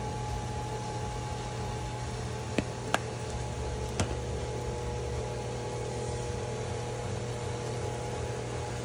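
A steady mechanical hum and whir, like a kitchen ventilation fan or appliance, with three short sharp clicks a few seconds in.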